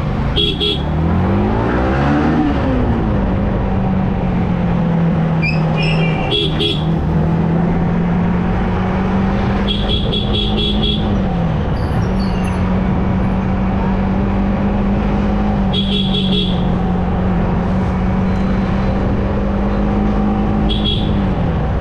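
Yamaha R15 M motorcycle's single-cylinder engine revving up through the gears for the first two seconds or so, then running at a near-steady pitch at cruising speed, with a few slight drops. A vehicle horn beeps about five times, once as a longer string of beeps near the middle.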